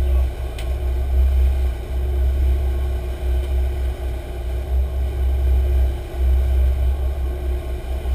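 Sport-fishing boat's engines running under way: a steady drone with a heavy low rumble that swells and dips, over the rush of the wake. A single sharp click about half a second in.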